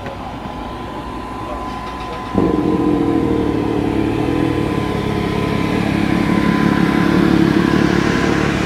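A vehicle engine comes in abruptly about two and a half seconds in and keeps running steadily and louder than the background before it. A faint steady tone runs underneath throughout.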